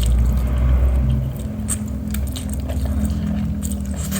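A person biting and chewing a mouthful of mie jebew noodles close to the microphone, with a few sharp mouth clicks. A low rumble fills the first second or so.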